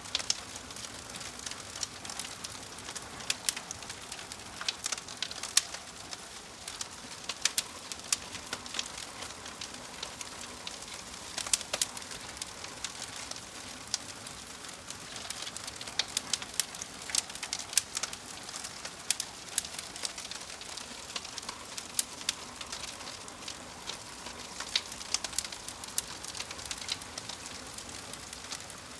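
Wood logs burning in a fireplace: a steady hiss of flame with frequent, irregular sharp crackles and pops.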